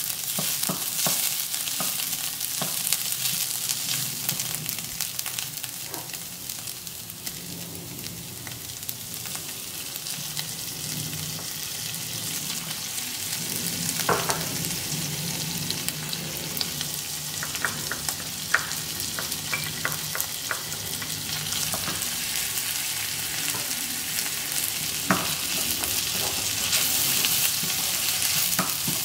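Diced onions sizzling in a frying pan, stirred with a wooden spoon that scrapes and knocks against the pan in scattered sharp clicks. The sizzle grows a little louder near the end.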